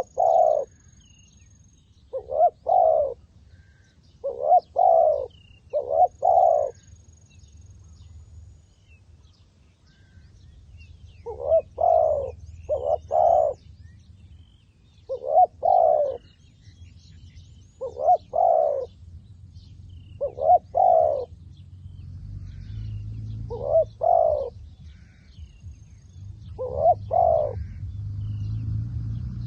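A dove cooing in short phrases of two or three low notes, repeated every couple of seconds, with a few seconds' pause in the middle. Faint high chirps of small birds sound in the background, and a low rumble grows louder near the end.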